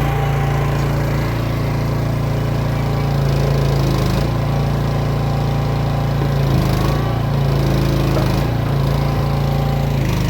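Mini excavator's small engine running steadily, its note dipping and shifting briefly a few times as the machine works.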